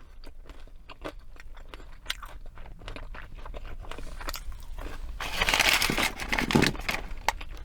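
Close-miked eating of fast food: chewing with small mouth clicks, and a louder burst of crunching lasting about a second and a half, about five seconds in.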